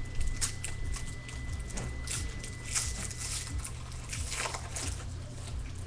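Crinkling and rustling of a trading-card pack's wrapper and cards being handled, in short scattered rustles over a low steady hum.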